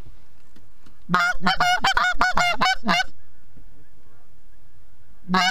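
Goose honks: a quick run of about ten loud honks starting about a second in, a pause, then another run beginning near the end, over a steady low wind rumble.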